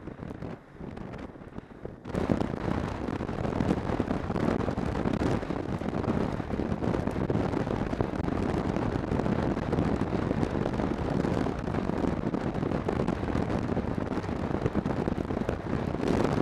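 Snowmobile running under way, its engine mixed with wind rushing over the microphone. About two seconds in it gets sharply louder and stays loud.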